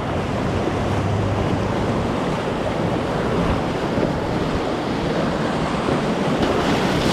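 Steady rush of whitewater river rapids around a raft, mixed with wind buffeting the microphone.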